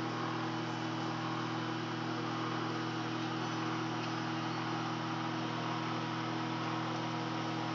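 Microwave oven running: a steady electrical hum over an even hiss.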